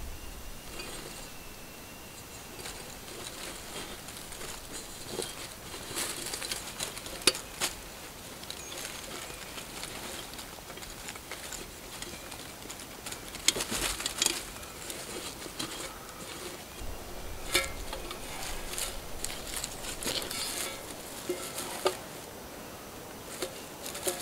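Plastic bag crinkling and rustling in the hands as a cord is tied around it at the base of a birch tree, giving irregular crackles that come in short clusters, a few sharper than the rest.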